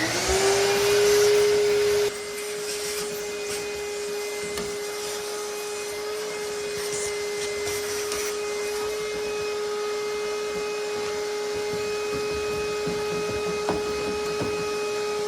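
Vacuum cleaner switching on and sucking through a narrow attachment pushed down into a dryer's lint-trap slot. Its motor whine rises quickly, then holds a steady pitch with airflow hiss. It gets a little quieter about two seconds in.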